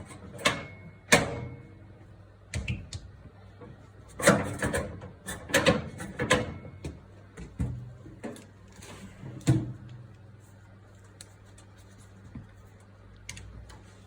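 Irregular knocks and clanks of metal parts and tools being handled, in quick clusters, over a steady low hum.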